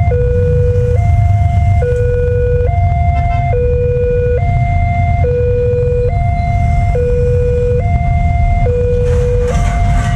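Railway level-crossing warning alarm: an electronic two-tone signal alternating steadily between a higher and a lower note, each held just under a second, sounding while the crossing barrier lowers. It plays over a steady low rumble, with a short hiss about nine seconds in.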